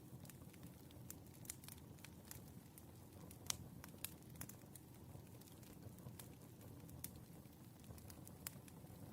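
Firewood burning: faint, irregular crackles and pops over a low steady rumble, with one sharper pop about three and a half seconds in.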